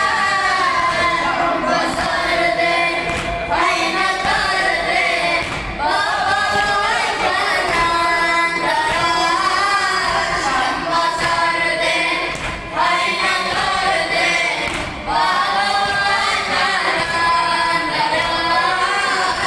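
A group of boys' and men's voices chanting a Shia noha, a mourning lament for chest-beating, in unison through microphones. The sung lines come in long phrases with short breaks every two to three seconds.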